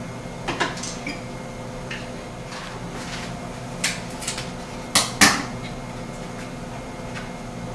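Kitchen utensils and cookware clinking and knocking as ingredients are handled at the stove: a few scattered light knocks, with the loudest pair close together about five seconds in.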